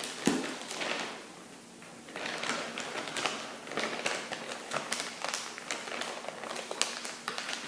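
Crinkling and crackling of a plastic soft-bait package being handled: a rapid run of small, irregular crackles and taps that thickens from about two seconds in.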